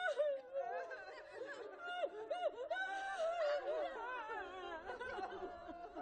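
Many overlapping voices moaning together, their pitches wavering and sliding up and down in a dense, continuous layer.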